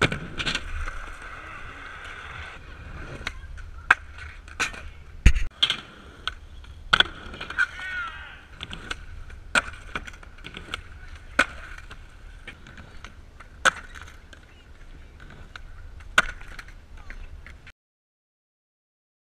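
Skateboarding in a concrete skatepark: wheels rolling over a steady hiss, with a string of sharp clacks and slaps as the board pops, lands and hits the concrete, plus the thud of a fall. It cuts to silence for the last second and a half.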